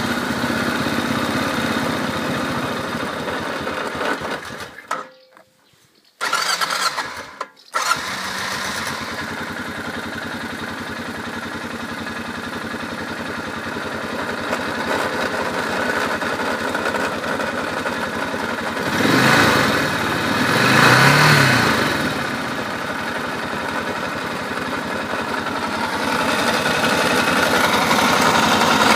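Honda TRX650 ATV engine running with the extraneous grinding noise that the owner is trying to find the cause of. It cuts out about five seconds in, comes back, drops again briefly, then runs steadily from about eight seconds, and is revved twice around twenty seconds.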